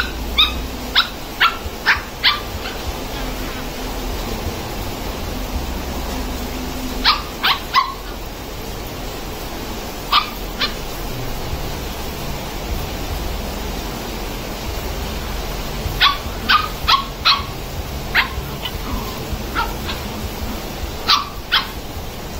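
Puppies yipping and barking as they play-fight: short, high yips in quick runs of two to five, a few seconds apart, over steady background noise.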